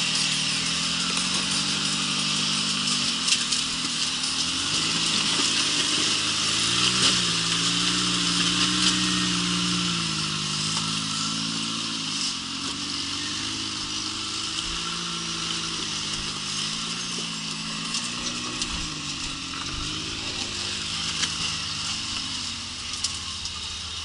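Rock crawler buggy's engine revving up and down in repeated waves under load while it climbs a steep rock ledge, over a steady hiss.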